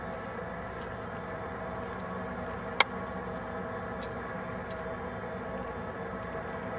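Steady mechanical hum, with one sharp click nearly three seconds in.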